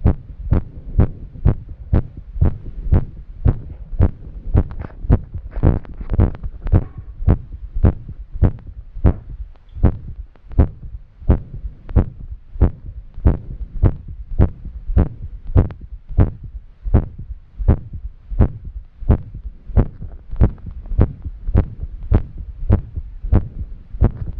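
A woman's heart beating fast and irregularly after exercise, loud deep thuds about two a second with uneven gaps: an arrhythmia. A soft breathing hiss sounds between the beats for a few seconds about a quarter of the way in.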